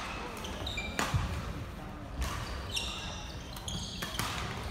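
Badminton rally: three sharp racket strikes on a shuttlecock, with short high squeaks of court shoes on the wooden floor between them.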